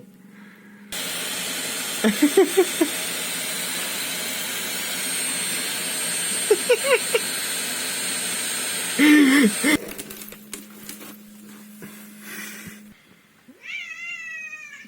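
A domestic cat meowing several times over a loud, steady, hiss-like noise that cuts off just before ten seconds in. The cat gives one clearer, longer meow that rises and falls near the end.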